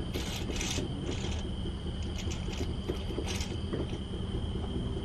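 A steady low rumble with a constant thin high drone over it, and a few short faint ticks and scrapes.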